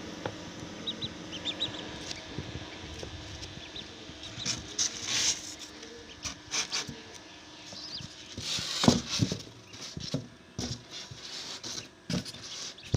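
Small chicks cheeping a few short high peeps and scrabbling about, with irregular patter, scratching and knocks, loudest in two bouts in the middle; a steady low hum runs underneath.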